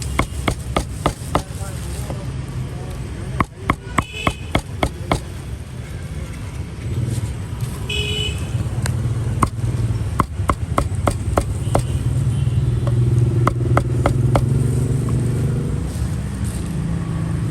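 Cleaver chopping roast meat on a wooden board, in quick runs of sharp knocks about three a second, with a steady hum of street traffic underneath.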